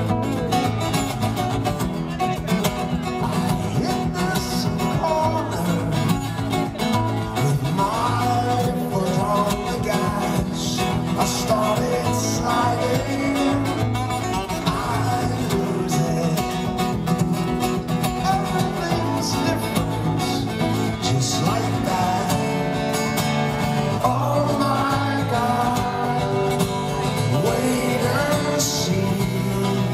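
Two steel-string acoustic guitars playing a song together live through a concert PA, one picking lead lines over the other's accompaniment.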